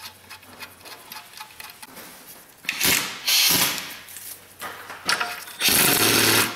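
Cordless impact wrench driving a bolt into the transmission bell housing area in short bursts. A pair of bursts comes a little under three seconds in and a longer one near the end, after some faint clicking as the bolt is started by hand.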